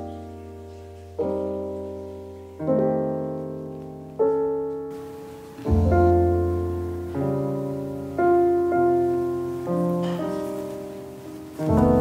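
Slow background piano music: gentle chords struck about every second and a half, each fading away, over a held low bass note.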